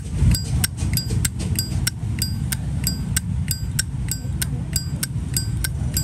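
Zippo lighter lid being flicked open and snapped shut over and over, about three sharp metallic clicks a second. Many of the clicks ring briefly with the lighter's characteristic 'clink'.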